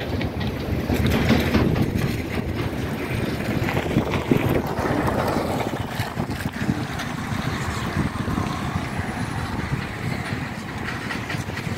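Steady engine and road noise from a moving vehicle, with wind on the microphone.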